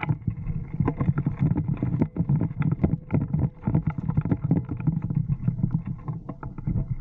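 Rumble and handling noise on a camera mounted on an airsoft rifle: a constant low rumble with many irregular knocks and rustles as the rifle is carried and moved through tall grass.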